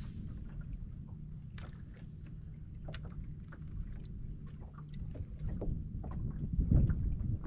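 Small waves lapping and slapping against the hull of a bass boat, a steady low wash with scattered light ticks and splashes, getting louder near the end.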